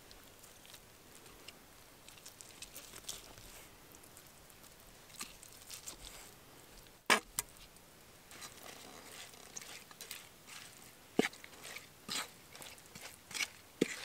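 Knife whittling a wooden stick: scattered short scrapes and clicks of the blade on the wood, with one louder sharp click about seven seconds in and a quicker run of them near the end.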